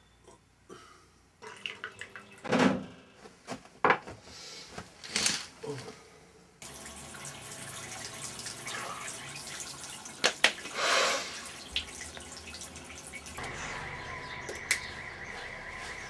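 Tap water running into a bathroom sink, with splashing as hands wash a face. Before it come a few separate short sounds.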